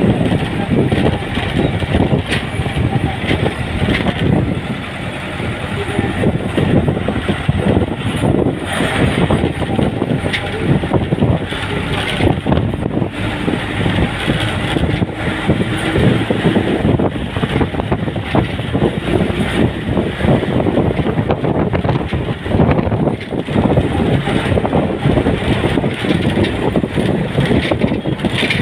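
A vehicle driving, heard from on board: steady, loud engine and road noise with wind buffeting the microphone.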